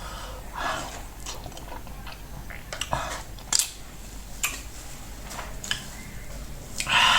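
Close-up eating sounds of fufu and soup: short, scattered wet mouth smacks and chewing clicks, with the odd light clink of a dish.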